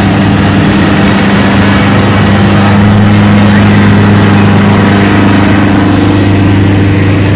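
John Deere 45 self-propelled combine's engine running steadily as the machine drives slowly past at close range, loudest about three to four seconds in.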